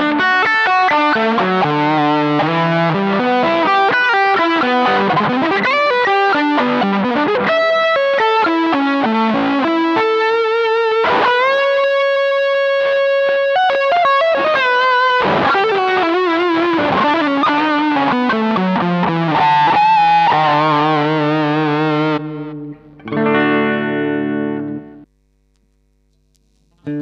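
Electric guitar played through a Zoom G7.1ut multi-effects pedal: a quick melodic lead line with a long held vibrato note in the middle and gliding bends, then a chord near the end that cuts off into a couple of seconds of silence.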